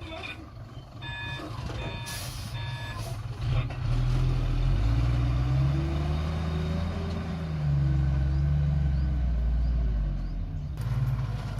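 A backup alarm gives three short reversing beeps. Then a construction machine's engine revs up and works hard, its pitch rising and falling, and eases off near the end.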